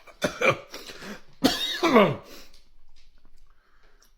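A man coughing and clearing his throat in two bouts within the first two seconds, the second sliding down in pitch, a reaction to the burn of the very hot chilli curry he is eating.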